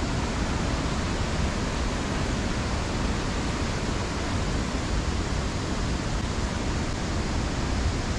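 Waterfall rushing steadily: an even hiss of falling water, with no breaks or changes.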